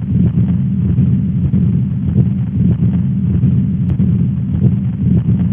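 Stethoscope recording of a patent ductus arteriosus murmur: a continuous, machinery-like murmur that runs through the whole cardiac cycle and covers the first and second heart sounds. Steady and unbroken, it is the classic sign of a duct between the aorta and the pulmonary artery that has not closed.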